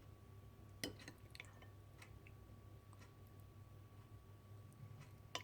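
Near silence with a low hum, broken by a few faint clicks and taps of a spoon on the dessert container as jello blocks are placed: a cluster about a second in and one more near the end.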